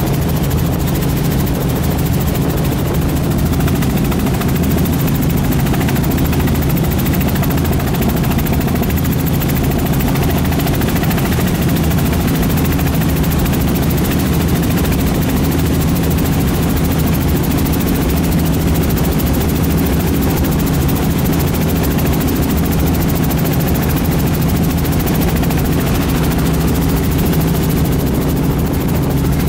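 Helicopter engine and rotors running steadily, heard from inside the cabin as a constant low drone with a steady hum in it, on approach to landing.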